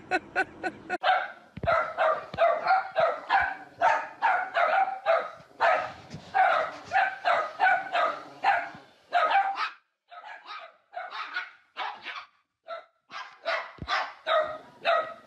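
Small dog yapping: a rapid run of short, high-pitched barks, about two or three a second, with brief pauses about ten and twelve seconds in.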